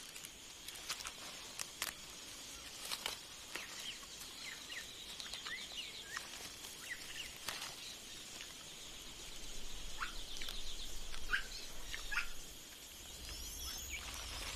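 Rainforest ambience: scattered short bird chirps and whistles and a couple of quick trills over a steady high hum, with a few sharp snaps.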